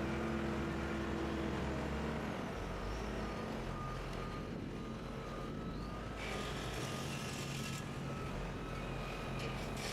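Heavy machinery engine running steadily, its pitch shifting a couple of times, with a faint reversing alarm beeping. A hiss lasts about a second and a half some six seconds in.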